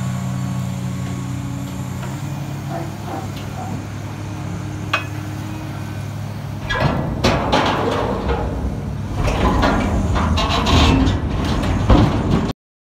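A hydraulic excavator's diesel engine runs steadily. From about seven seconds in, mangled steel scrap held in its scrap shear is forced into a steel skip, giving loud irregular crashing and clanging of metal on metal. The sound cuts off suddenly near the end.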